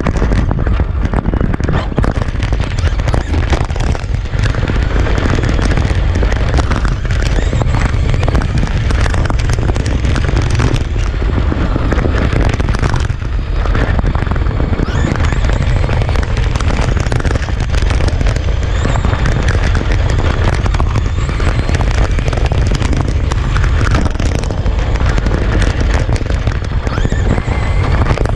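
Onboard sound from a camera riding on a brushless-powered Traxxas Slash RC truck at speed on rough asphalt: loud, continuous rumble and buffeting from the tyres and wind, with a constant crackle of small knocks from the surface and a faint high motor whine rising and falling.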